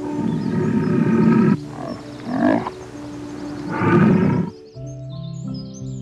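An animal giving three loud, rough calls, the first the longest, over steady background music.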